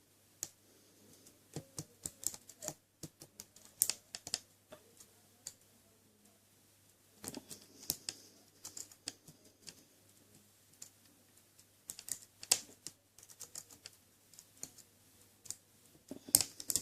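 Pick and tension wrench working the pin stack of a Chubb 40 mm padlock: scattered light clicks and taps in irregular clusters as pins are lifted and set, feeling for a false set from the lock's spool pins.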